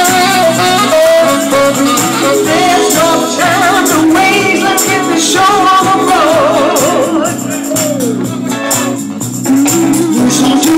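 Live band playing, with a singer holding wavering notes over the band and light percussion keeping a steady beat.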